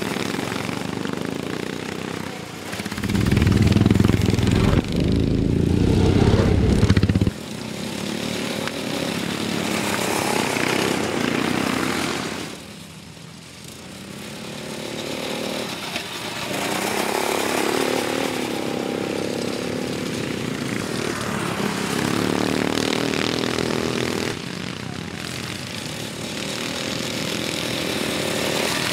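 Racing ride-on lawnmower engines running at speed as the mowers pass by one after another. The loudest pass, from about three to seven seconds in, cuts off suddenly.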